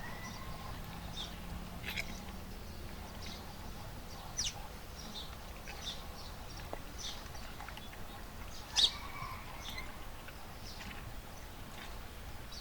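Birds chirping outdoors in short, scattered calls, one louder call near nine seconds in, over a faint low hum during the first few seconds.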